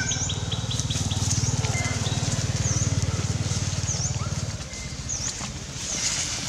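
A bird repeating a short, high, dipping call about once a second, over a low, fast pulsing drone that stops about four and a half seconds in.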